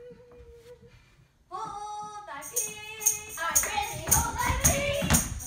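A young performer's solo singing on stage, opening with a single held note, then a sung line from about a second and a half in. From about two and a half seconds in a tambourine jingles in a steady beat and the music grows louder and fuller.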